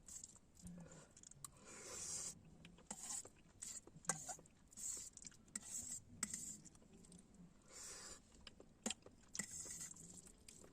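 Faint eating sounds: quiet chewing with scattered small clicks and scrapes.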